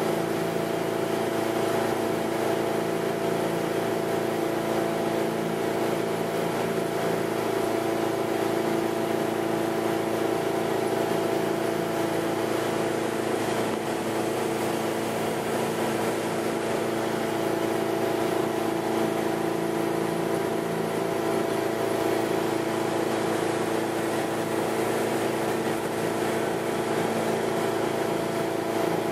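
Tow boat's engine running at a steady cruising speed, a constant drone with no change in pitch, over the rush of water and wind.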